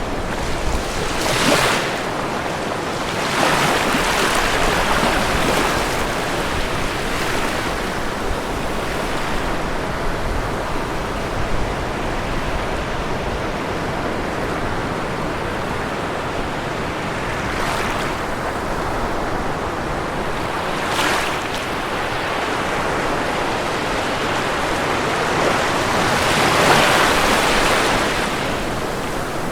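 Ocean waves washing onto a shore over a steady rush of surf, with several waves breaking louder, the biggest near the end.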